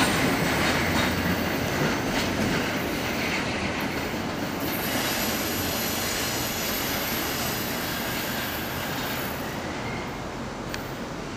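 Amtrak passenger train cars rolling away on a curve as the last car passes, with wheel noise and a few rail clicks near the start, and faint wheel squeal. The sound fades steadily as the train moves off.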